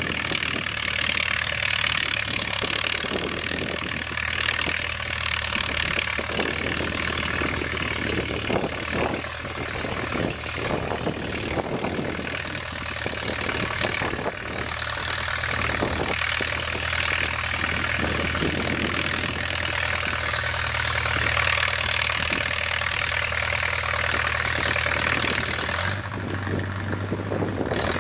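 Farmall 300 tractor engine running steadily at a distance while pulling a disc harrow and quack digger through the soil, under a steady hiss. The engine note shifts near the end.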